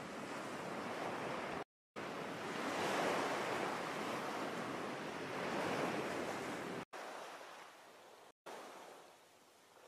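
Surf washing on a beach: a steady rushing that swells and eases, cuts out briefly a few times, and falls quieter near the end.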